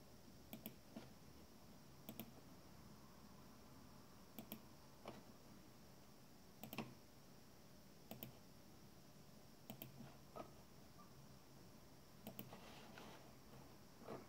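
Faint computer mouse clicks, many in quick pairs of press and release, every second or two, over a faint steady hum.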